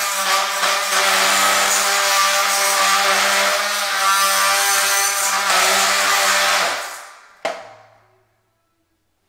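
Small cordless power tool fitted with a regular (non-diamond) blade, running at a steady pitch while it cuts at a tile edge around a leveling clip. About seven seconds in it is switched off and winds down, with one sharp click as it stops.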